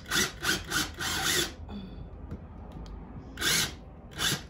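Makita 18V cordless drill run in short trigger bursts, driving a screw for a curtain-rod bracket into the wall. Several quick pulses, then a longer run about a second in; after a pause come two more short bursts near the end.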